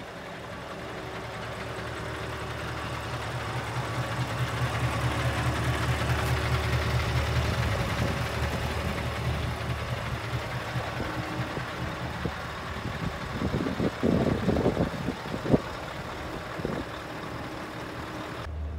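Scania R 730's V8 diesel engine idling steadily, growing louder over the first several seconds. A few knocks and a sharp click come about 14 to 16 seconds in.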